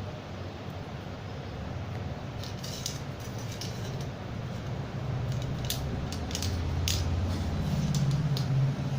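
Kittens scuffling at play: scattered light scratches and clicks from about two and a half seconds in, over a low hum that grows louder toward the end.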